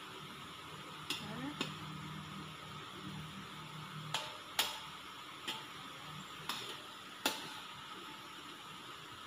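A metal slotted ladle clinks sharply against a wok several times while stirring, over palm sugar syrup bubbling steadily at the boil.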